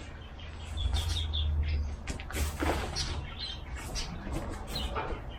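Small birds chirping in short, repeated calls, over a low wind rumble on the microphone. There is a brief scuffing noise a little over two seconds in.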